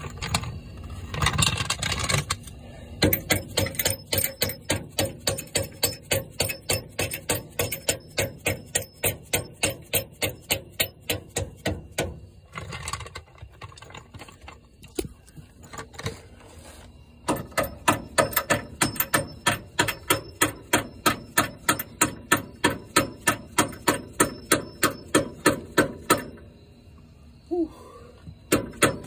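Hammer striking a long bolt to drive it through a Toyota 4Runner's front differential mount bushing. The strikes are even and metallic, about two to three a second, in long runs broken by a few short pauses.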